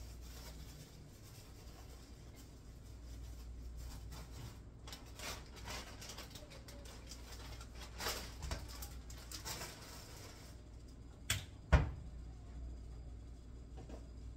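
Kitchen-counter handling: faint rustling of a plastic bag and light clicks, then two sharp knocks close together about eleven seconds in, over a low steady hum.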